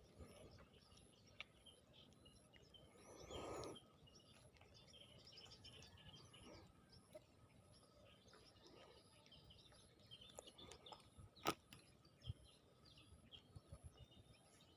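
Near silence: faint outdoor ambience with scattered bird chirps, a brief rushing sound about three seconds in, and a single sharp click later on.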